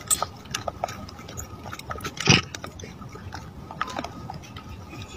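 Macaque monkeys picking through grain scattered on gravel: irregular light clicks and crackles, with one louder noisy burst about two seconds in.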